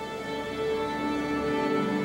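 Orchestral music: held chords with violins, growing louder.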